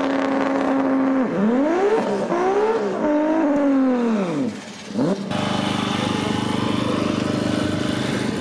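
Modified race car's engine holding steady revs, then accelerating hard, with the pitch climbing and dropping back at several gear changes. The note then falls away as the car recedes. About five seconds in, the sound cuts to a steady engine hum.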